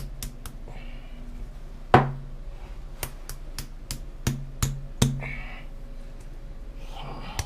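Irregular knocks and taps: a freshly filled grease tube being tapped against a hard surface to settle the grease and drive out air pockets. The loudest knock comes about two seconds in, with a cluster of taps between about three and five seconds.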